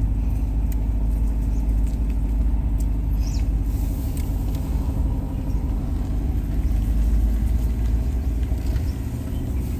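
Motor vehicle engine running steadily under way, with a low rumble, heard from on board the vehicle.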